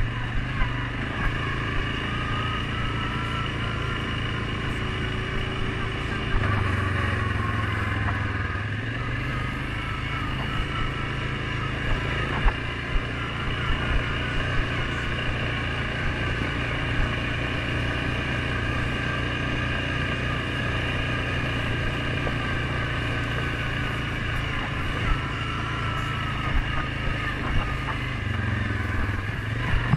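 Suzuki KingQuad 750 ATV's single-cylinder engine running steadily under way on a dirt trail, its pitch rising and falling a little with the throttle, with occasional sharp knocks from the machine going over bumps.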